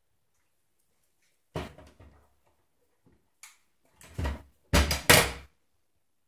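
A dachshund pushing through a pet flap in a door: the flap knocks and swings, then clatters against its frame in a run of thumps about four to five and a half seconds in, the loudest near the end.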